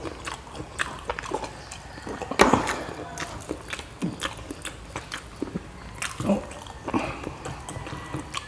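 A person chewing food noisily with the mouth open: irregular wet smacks and clicks of the lips and tongue, a sharper smack about two and a half seconds in.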